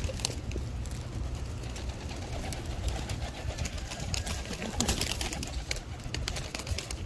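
Domestic pigeons cooing now and then at close range, with scattered light ticks and taps and a steady low rumble underneath.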